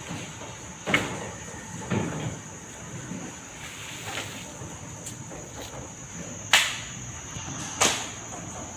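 A handful of separate knocks and clunks, irregularly spaced, the loudest two near the end, over a faint steady high whine.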